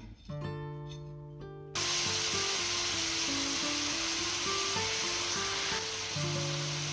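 Food frying in a pan: a steady sizzle that starts abruptly about two seconds in, over background music.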